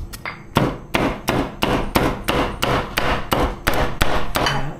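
Meat cleaver chopping cooked meat on a round wooden chopping board, in a steady run of about a dozen even strokes, roughly three a second.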